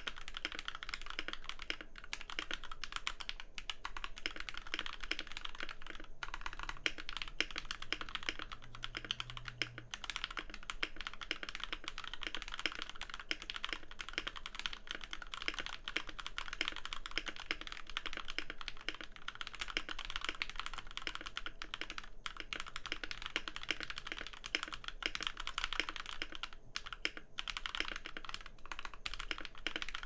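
Continuous fast typing on a Keychron K2 mechanical keyboard fitted with Gateron Milky Yellow linear switches on an integrated aluminium plate, with stock keycaps and no dampening: many keystrokes a second, pausing briefly a few times.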